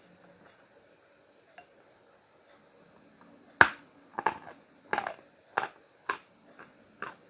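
Khrapovsky chalk bitten with a sharp crack about halfway through, then crunched between the teeth about five more times, roughly every half second.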